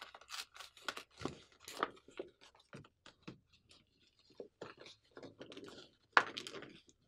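Folded paper boat being handled: an irregular string of short paper crinkles and rustles, with the loudest rustle about six seconds in as the boat is pressed down onto a book.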